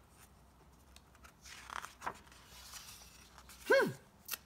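A page of a hardcover picture book being turned by hand: a soft paper swish and rustle with a few small clicks about halfway through. Near the end comes a brief voice sound, a short falling hum.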